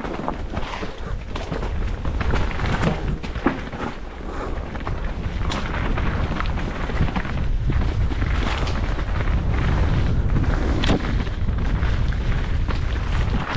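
Mountain bike descending a dirt forest trail, heard from an action camera on the rider: wind buffets the microphone with a steady low rumble, and the tyres run over dirt and leaf litter. Frequent short clicks and knocks come from the bike rattling over bumps.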